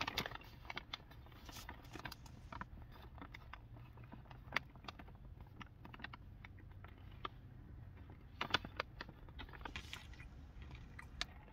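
Chewing crunchy coated peanuts close to the mouth: a run of small, sharp, irregular crunches, with a louder cluster about eight and a half seconds in.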